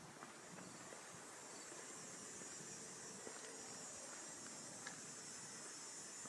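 Faint, steady high-pitched insect trilling, like crickets, with a few soft clicks that sound like footsteps on pavement.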